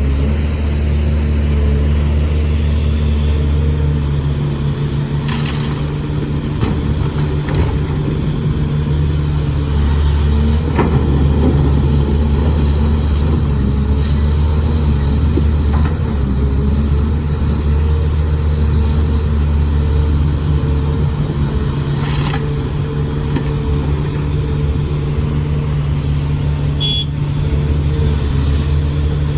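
Heavy construction machine's engine running steadily under load, with a few sharp clanks now and then.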